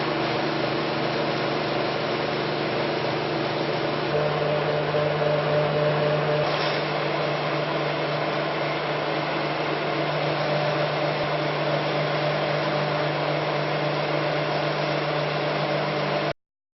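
Flat-die pellet mill running steadily, a constant mechanical hum with a low drone under a broad rushing noise. It cuts off suddenly near the end.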